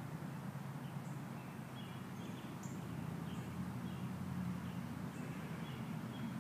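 Outdoor ambience: a steady low hum with small birds chirping faintly many times over it.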